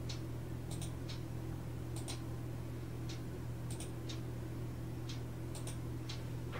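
Room tone: a steady low hum with faint, irregular light ticks, some in quick pairs, about one or two a second.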